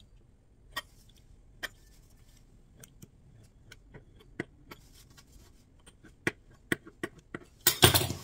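Pizza cutter wheel ticking against a floured wooden board as it chops dough strips into small pieces, in scattered sharp clicks. Near the end, a louder brief scrape as the cut dough is swept together by hand on the board.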